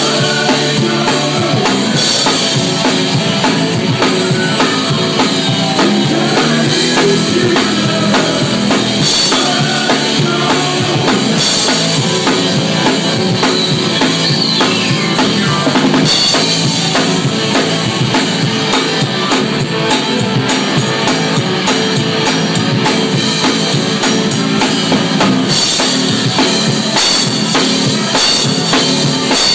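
A drum kit played continuously, with bass drum, snare and cymbal hits throughout.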